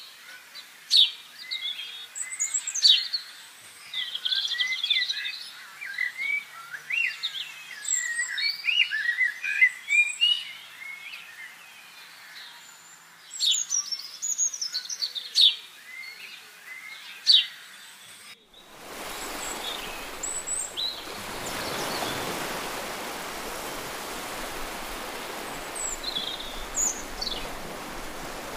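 Several small birds chirping and singing at once, in many short, quick notes. About two-thirds of the way through, this gives way suddenly to a steady rushing noise, like surf or wind, with a few chirps over it.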